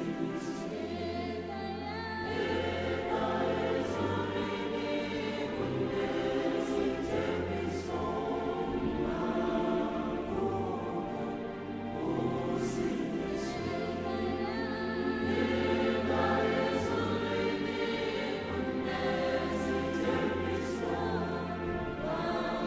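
Background music: a choir singing in parts over sustained low bass notes.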